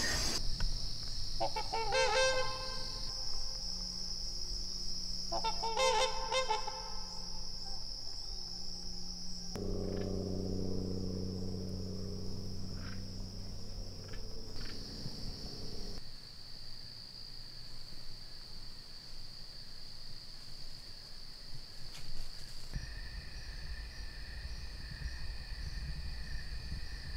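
Dusk chorus of crickets in the woods, a steady high-pitched trill. Two short pulsing calls come about two and six seconds in, and a low hum is heard for a few seconds in the middle.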